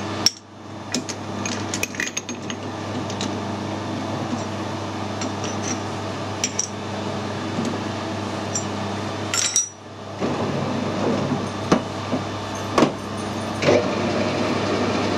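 Metallic clicks and clinks as a steel bar is set in a metal lathe's three-jaw chuck and the jaws are tightened, over a steady machine hum. About ten seconds in, after a short dip, the sound grows louder and rougher with a few sharp knocks, and by the end the chuck is spinning with the bar in it.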